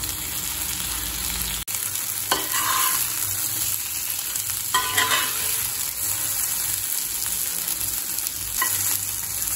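Masala-coated raw banana slices sizzling steadily as they shallow-fry in oil in a cast-iron pan, with a metal spatula scraping and turning them three times.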